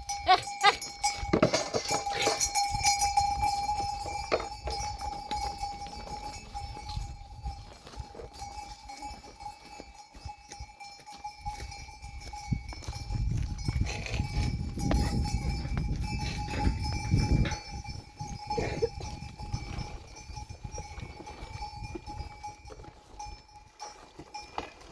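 Livestock neck bells ringing steadily as a herd moves, with scattered knocks and clicks. A low rumble comes in from about halfway through and fades a few seconds later.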